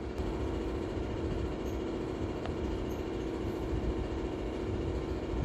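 Steady mechanical hum of a running machine, with a low drone and rumble, and one faint tick about two and a half seconds in.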